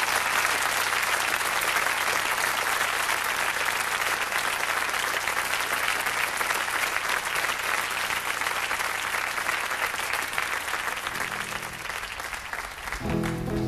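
Studio audience applauding, a steady crowd of clapping that dies away near the end as an acoustic guitar begins to play.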